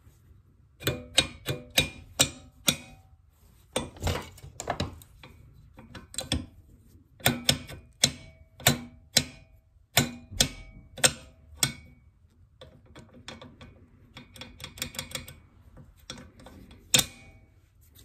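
Irregular sharp clicks and clacks of metal parts and tools being handled on a workbench, some ringing briefly. They start about a second in, thin out around the twelve-second mark into lighter quick ticks, and end with one loud clack.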